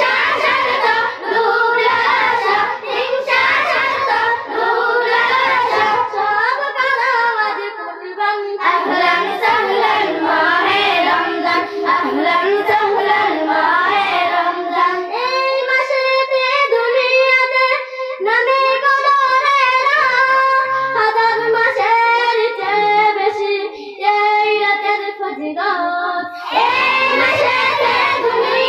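Girls singing a Bengali gojol, an Islamic devotional song, together into microphones. From about halfway through fewer voices carry the line, and the full group comes back in near the end.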